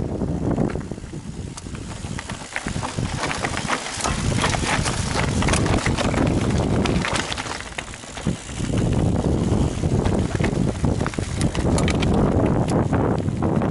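Mountain bike ridden over a rough trail: tyres clattering over stones and roots and the bike rattling in quick irregular knocks, with wind rumbling on the microphone that eases off twice.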